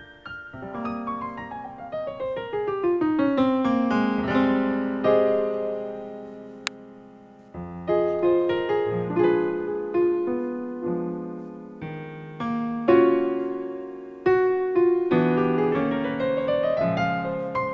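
Background solo piano music. Flowing notes run downward at the start, then single chords and notes follow, and a rising run comes near the end.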